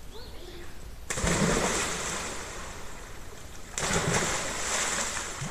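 Two people jumping into a deep pool one after the other: two heavy splashes, about a second in and just before four seconds, each a thud followed by a fading hiss of spray.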